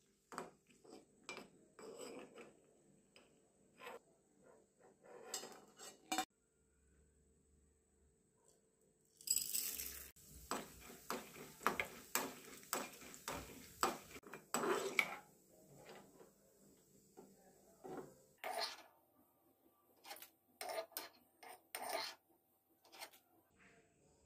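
Steel ladle scraping and clinking against a small aluminium pan while stirring ingredients frying in oil. About nine seconds in, a brief rush of sound as dal is tipped into the pan, followed by a run of rapid scrapes, then slower, scattered ones.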